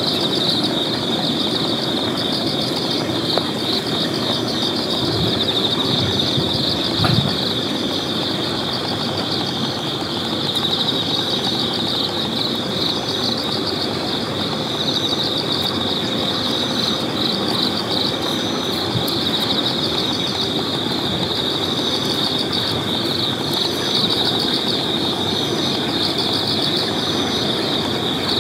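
Night insects chirring steadily in one constant high trill, over a steady low background noise.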